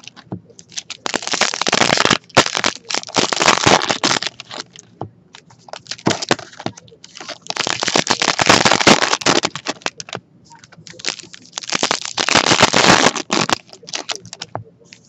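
Foil trading-card pack wrappers crinkling and tearing open in several bursts of loud crackling, with short pauses between.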